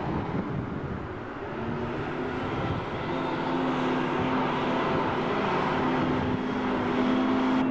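A car driving, with steady engine hum and road noise; the engine note rises a little about two seconds in and then holds steady.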